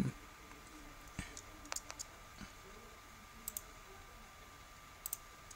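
Computer mouse clicks, a few scattered single clicks and some in quick pairs, over a faint steady high tone.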